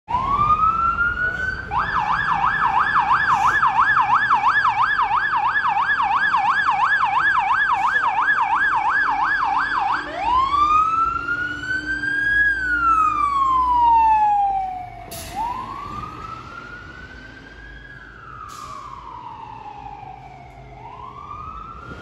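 MFS fire truck siren on an emergency run: a fast yelp for the first ten seconds or so, then switching to a slow wail that rises and falls. It grows fainter in the last several seconds.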